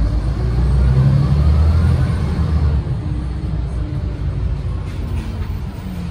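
Renault PR100.3 bus's turbocharged six-cylinder diesel pulling under load, heard from the rear of the passenger cabin, with a faint rising whine in the first two seconds. The low engine note eases back about three seconds in and the bus runs on more quietly.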